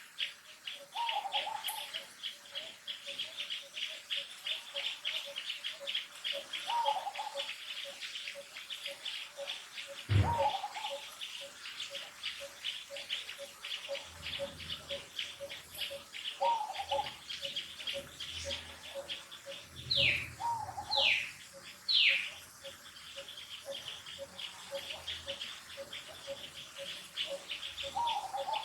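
Wild bird calls: a fast, continuous pulsing chirp, a steady lower repeated note, and short calls every few seconds. A single thump comes about ten seconds in, and three quick falling high calls come about two-thirds of the way through.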